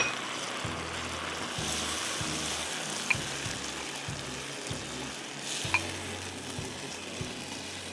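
Chicken pieces with yogurt and ground spices sizzling in oil in a nonstick wok while being stirred with a silicone spatula, a steady frying hiss with a couple of light clicks.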